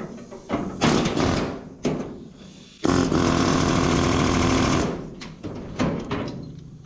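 Pneumatic air hammer with a chisel bit hammering at sheet steel, cutting an old channel off a truck bedside: a few short bursts, then a steady run of about two seconds near the middle, then more short bursts.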